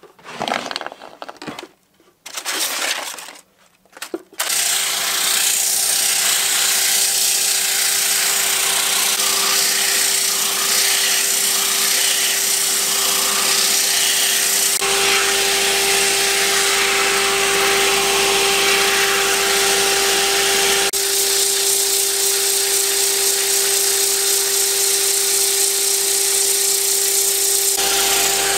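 A few short rattles as a wooden workbench drawer is pulled open, then a wood lathe starts running with a steady hum while sandpaper hisses against the spinning wooden bowl.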